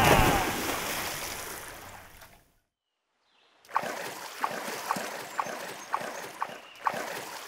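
Cartoon water sound effects: a splash into a river washing away over about two seconds, then a moment of dead silence. After that comes rowing, with oars striking the water about twice a second over running water.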